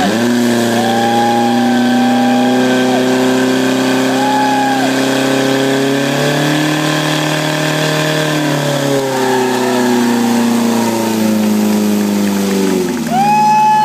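Portable fire pump's engine running at high revs, pumping water through the attack hoses, its pitch shifting a little about halfway and dropping about a second before the end as it is throttled back. A brief high steady tone sounds over it three times.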